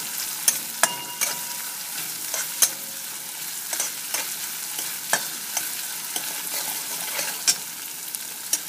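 Ginger, green chili and garlic paste sizzling in hot oil in a steel wok as a metal spatula stirs it, with sharp clicks and scrapes of the spatula against the pan now and then over the steady sizzle.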